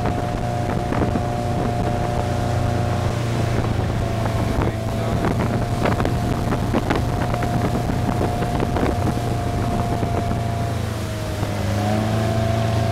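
Motorboat engine running steadily at speed while towing a tube, with wind on the microphone and scattered splashes of water. About eleven seconds in the engine eases off and drops in pitch, then picks up again.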